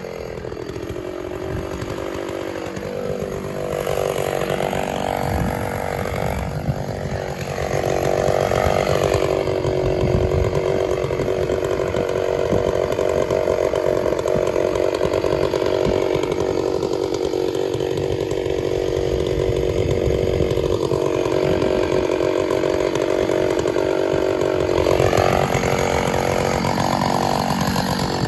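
Stihl 066 two-stroke chainsaw running steadily while cutting into the base of a large willow trunk. Its note holds even for long stretches and shifts near the end.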